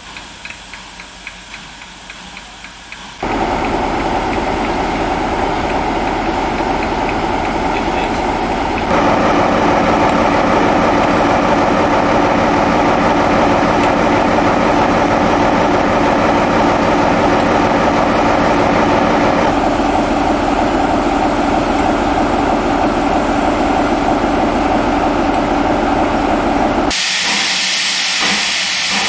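Heritage railway locomotive running steadily, its level jumping abruptly a few times; about 27 seconds in, it turns into a loud hiss of escaping steam.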